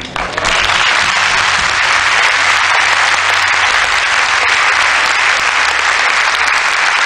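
Audience applauding, the clapping starting about half a second in and then holding steady.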